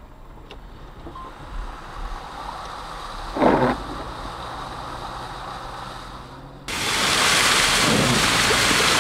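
Car driving through rain-soaked, flooded streets, tyres in standing water over a low engine hum, with one brief loud whoosh a few seconds in. Then, suddenly, a much louder steady rushing of water that holds to the end.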